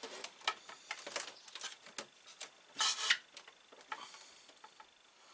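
Handling noise of a plastic computer monitor and its cables: scattered light clicks, knocks and rubbing, with a louder scrape about three seconds in, quieter near the end.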